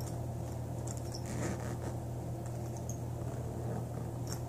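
Faint rustling and handling of a fabric Easton sports bag as things are pushed into its back compartment, a few soft scrapes and ticks, over a steady low hum.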